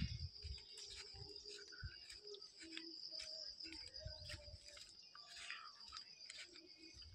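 Insects trilling steadily in a continuous high-pitched drone, with scattered faint clicks and low bumps.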